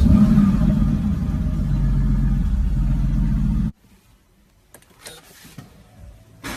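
Supercar engine and exhaust firing up with a sudden loud burst, then running steadily at a fast idle. The sound cuts off abruptly after nearly four seconds, leaving only a few faint clicks.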